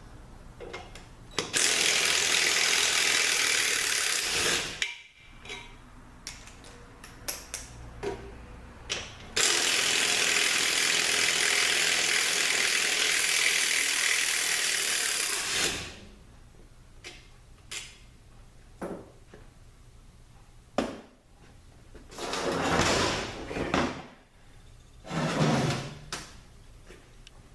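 Power tool backing out the Loctited differential bolts on a Nissan RL3F01A transaxle. It runs in two long steady bursts, about three and six seconds, with light clicks and clanks between, then two shorter bursts near the end.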